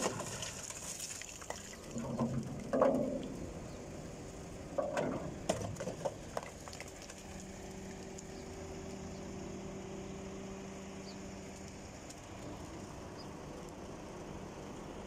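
Transit mixer truck's diesel engine running steadily at idle, with a few short bursts of knocking and rattling in the first six seconds.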